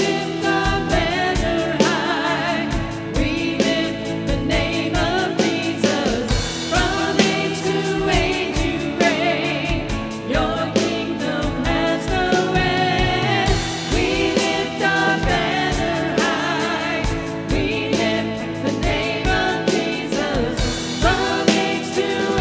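Contemporary worship band playing live: male and female singers lead a praise song together over electric guitar and a steady beat on an electronic drum kit.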